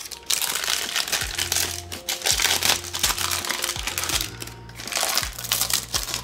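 Baking paper crinkling and rustling as it is peeled off a baked loaf, over background music with a steady low beat.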